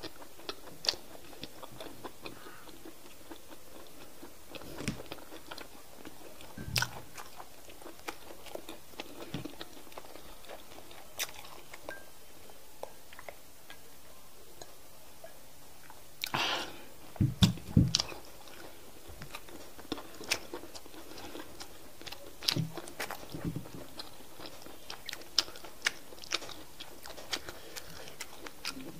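Close-miked eating sounds of semolina fufu dipped in okra soup and eaten by hand: soft chewing, wet mouth sounds and scattered sharp lip smacks. A short run of loud low gulps comes a little past halfway, as water is drunk from a glass.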